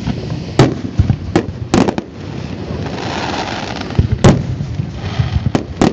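Aerial firework shells bursting in a series of about nine sharp booms. The loudest come about half a second in and about four seconds in, and several fall in quick clusters, with a rushing noise between them.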